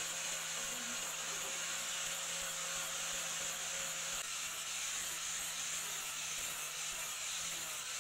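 Handheld electric angle grinder running steadily, its abrasive disc grinding the steel of a small forged hammer head: a constant hissing grind over a steady motor hum.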